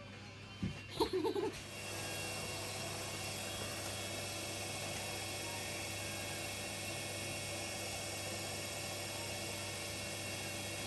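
A small wood lathe starts about two seconds in, just after a thump and a couple of short sharp sounds, and then runs steadily with a whine and hum. It is spinning a turned pen while a cloth is held against it to apply finish.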